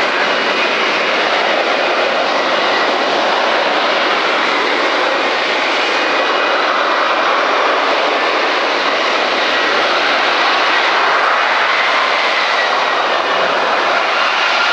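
Lockheed Martin F-35B Lightning II in a steady hover in short take-off/vertical landing mode, its F135 jet engine and shaft-driven lift fan running loud and steady with faint high whining tones over the jet noise, as it descends for a vertical landing.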